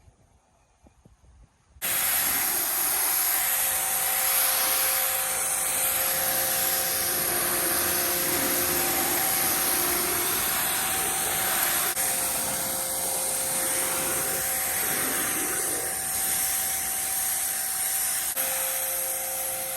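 Electric brushless pressure washer (Bauer 2300 PSI, 1.2 GPM) kicks on suddenly about two seconds in and runs steadily. A motor whine sits over the hiss of the water spray.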